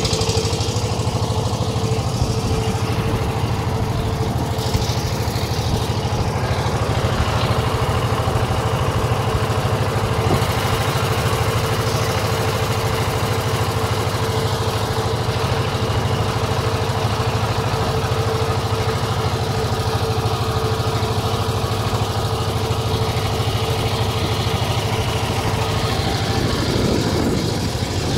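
A boat's engine running steadily at an even speed, with a constant pulsing drone; its pitch wavers briefly near the end.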